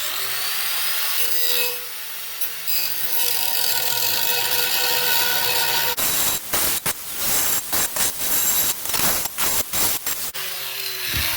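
Electric grinder grinding metal, taking off the rivet heads that hold a frying pan's handle. The grinding is steady for about six seconds, then breaks on and off in short stop-start touches before cutting off near the end.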